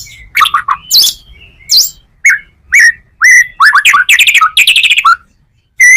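White-rumped shama singing a varied song full of learned, mimicked phrases: sharp whistles, chips and gliding notes, with fast trills about three and a half to five seconds in and a brief pause near the end.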